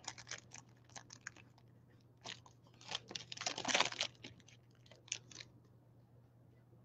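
Shiny trading-card pack wrapper crinkling and crackling in the hands as the pack is torn open and the cards are pulled out. The sound comes in short irregular bursts, loudest about three to four seconds in.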